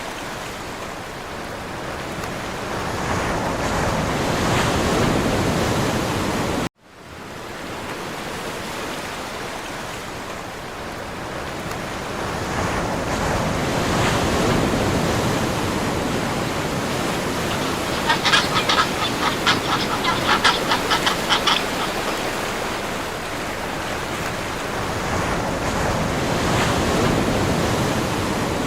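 Surf washing steadily on a shore, cut off for a moment about seven seconds in. About two-thirds of the way in comes a rapid run of harsh, repeated honking calls lasting about three seconds, typical of a penguin braying.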